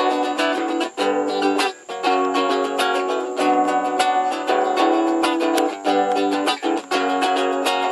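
Acoustic guitar playing an instrumental introduction of plucked notes and chords, with brief breaks between phrases.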